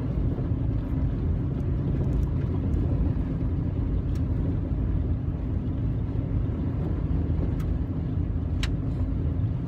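Steady low rumble of engine and tyre noise inside a pickup truck's cab while driving on a gravel road, with two faint sharp ticks, one about midway and one near the end.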